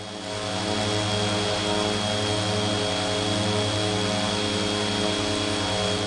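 Quadcopter camera drone in flight, its propellers and motors making a steady buzz with a thin high whine over it. The sound fades in over about the first second.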